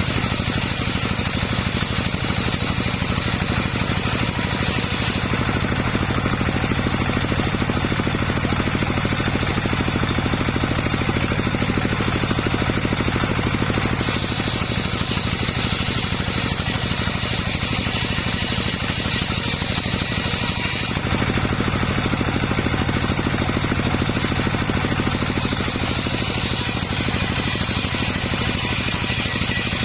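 Homemade circular saw running steadily on an engine, ripping sengon wood into rafters; a higher hiss comes and goes several times over the steady hum.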